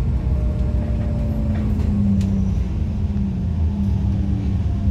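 Mercedes-Benz OC500LE CNG bus's natural-gas engine and ZF six-speed automatic drivetrain running under way, heard inside the passenger cabin as a steady low drone with road rumble. There is a faint tick about two seconds in.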